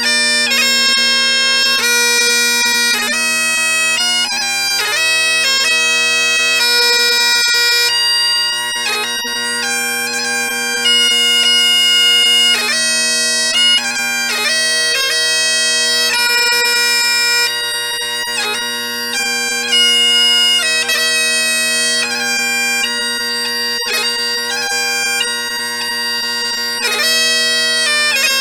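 Bagpipes playing a Scottish tune: steady drones under a chanter melody of quick, ornamented notes.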